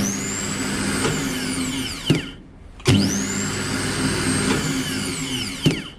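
Mitsubishi starter motor run twice. Each time it engages with a clunk and spins up at once to a high steady whine, then winds down in a falling whine, with a second clunk as it slows.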